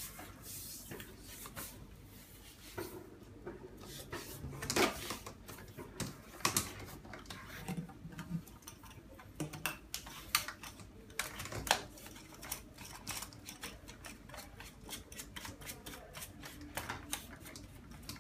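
Hard plastic vacuum hose attachments being handled and pushed together: irregular clicks and knocks, a few of them sharper and louder.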